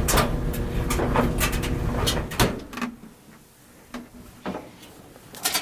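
Washing machine tumbling a load: a low rumble with repeated knocks and clicks that drops away after about two and a half seconds, leaving a few scattered knocks.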